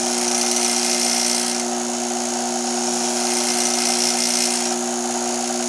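Craftsman 6-inch bench grinder running steadily at full speed on its 3600 RPM electric motor: a constant hum with a high hiss over it.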